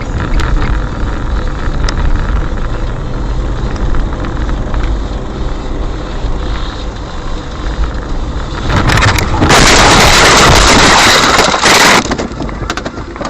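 Car on the road, heard through a dashcam microphone: steady road and engine noise, then, about nine seconds in, a loud, harsh noise lasting about three seconds that overloads the recording before dropping back.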